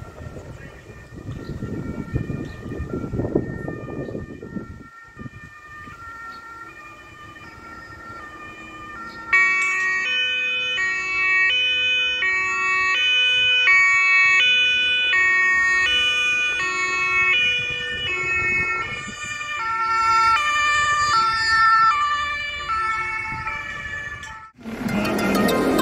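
German two-tone emergency siren (Martinshorn) on an approaching ambulance, alternating steadily between a high and a low pitch: faint at first, loud from about nine seconds in. A car drives past in the first few seconds, and the siren cuts off abruptly near the end as music begins.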